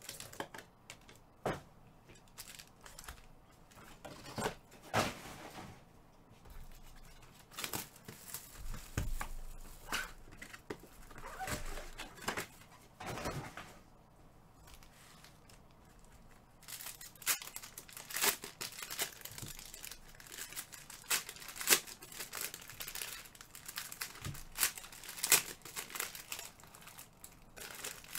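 Trading card packs being torn open by hand, their wrappers tearing and crinkling in irregular bursts of crackle, busier in the last ten seconds.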